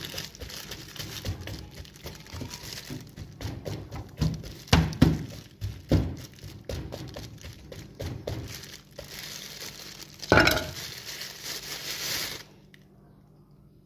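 Knife tip repeatedly stabbing into a raw marinated whole chicken on a bamboo tray, giving irregular soft knocks and taps, with a louder crinkling rustle about ten seconds in.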